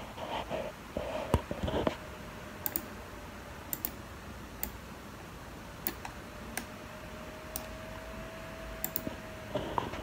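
Sparse, irregular clicks of a computer mouse, about ten spread over several seconds, over a faint steady hum.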